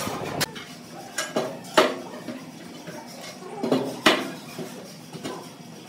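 Steel trowel scraping and clinking against ceramic tile as tile adhesive is spread, with a few sharp clicks, the loudest nearly two seconds in and another pair around four seconds in.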